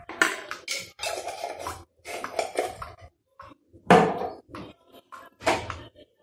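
Kitchen clatter: a metal spoon and dishes knocking and scraping in a run of irregular clinks and knocks, the loudest about four seconds in.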